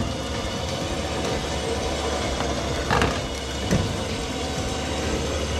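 Winch pulling a heavy log onto a trailer bed: a steady motor drone with a low hum, a knock about three seconds in and another shortly after.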